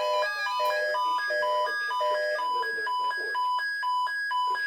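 Weather radio receivers sounding their alert alarms, announcing an incoming Child Abduction Emergency (Amber Alert) broadcast. A high and a lower beep alternate about twice a second throughout, and over the first half another radio's lower beeps join in.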